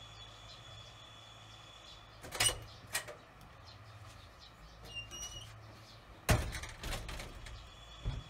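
A few sharp knocks and thumps of unclear source, the loudest about two and a half and six seconds in. Around five seconds in come a couple of short, high, rising chirps from a barn swallow at its nest. A steady high-pitched tone in the background stops at about two seconds and comes back near the end.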